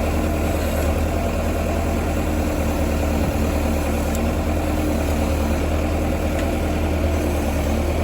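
Case bulldozer's diesel engine idling steadily, with no change in speed.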